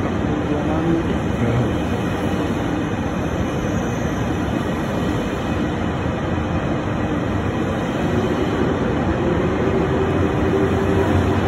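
TGV Duplex double-deck high-speed train rolling slowly past along a platform, a steady running noise with a hum whose pitch dips early and climbs back about eight seconds in, growing a little louder near the end.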